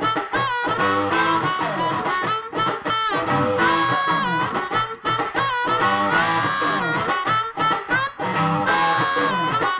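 Amplified blues harmonica played through a microphone cupped in the hands, its notes bent and wavering, over an electric guitar accompaniment.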